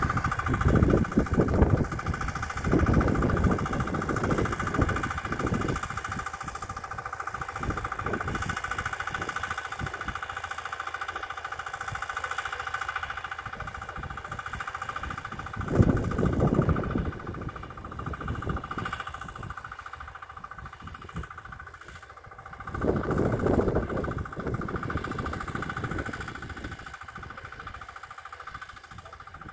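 Walk-behind tractor engine running steadily at a distance while it pulls a ridger along a potato row. Several irregular bursts of low rumble are louder than the engine, in the first few seconds and twice more later on.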